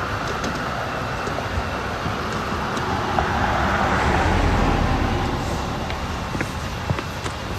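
Highway traffic going by, a steady rush of tyres and engines that swells as a vehicle passes about four to five seconds in, then eases off.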